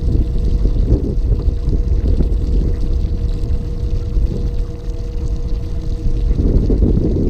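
Small fishing boat's motor humming steadily at low speed over a loud low rumble of wind and water against the hull. A rustling burst of handling noise comes near the end.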